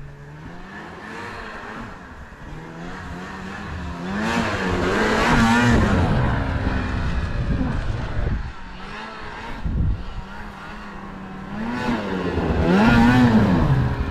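Snowmobile engine revving up and down. It swells loudest about four to six seconds in and again near the end.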